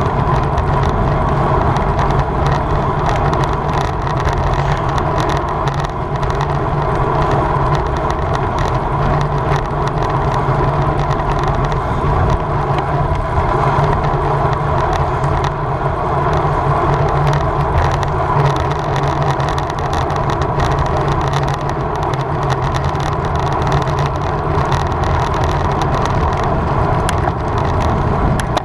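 Steady rush of wind over the microphone with tyre and road noise from a road bike riding at speed.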